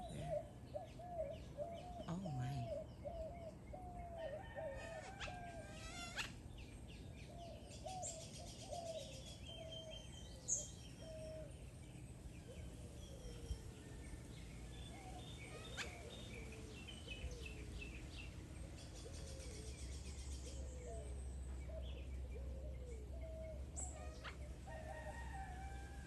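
Birds calling: a long run of short, wavering low notes repeats throughout, with higher chirps and quick trills above it. A low rumble comes up about two thirds in.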